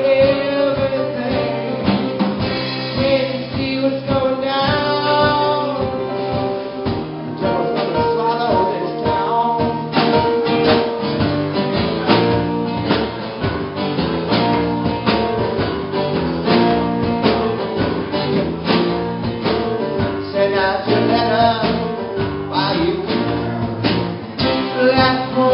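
A song with a singing voice over guitar and a drum kit. The voice drops out after about six seconds for an instrumental stretch of guitar and drums, and comes back near the end.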